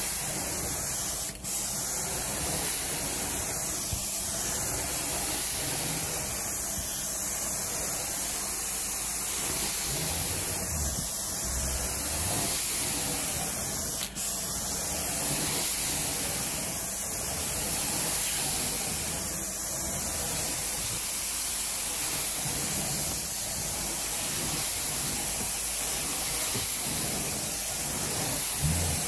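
Carpet-cleaning extraction wand being worked over carpet: a loud, steady hiss of spray and vacuum suction that wavers every couple of seconds. It dips briefly twice.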